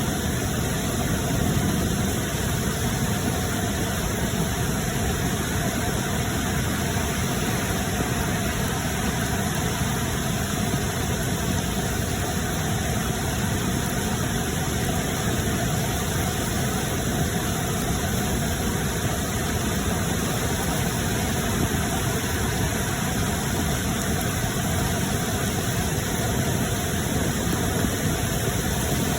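Steady, unbroken roar of rushing water.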